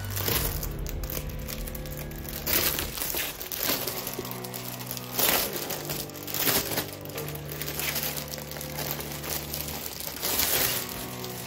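Plastic packaging crinkling in several short bursts over background music.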